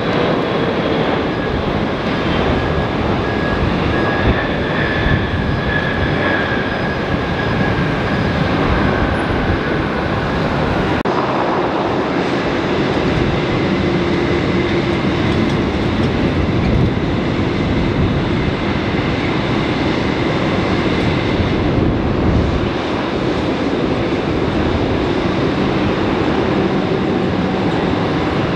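Jet engines of a Boeing 777 freighter touching down and rolling out: a steady rumble with a whine that falls slightly. About eleven seconds in it cuts to the engines of a Boeing 787 Dreamliner taxiing, a steady rumble with a low hum.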